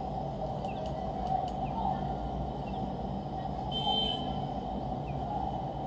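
Steady low hum and hiss of background noise on a desk microphone, with a few faint computer-mouse clicks and a short high-pitched tone about four seconds in.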